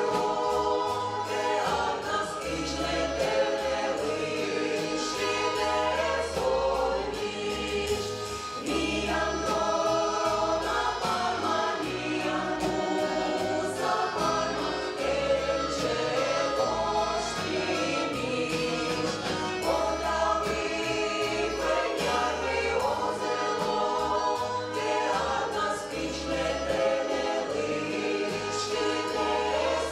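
Folk ensemble singing a Komi-language song in chorus, backed by a stage band with a keyboard, a drum kit keeping a steady beat and a bass line underneath.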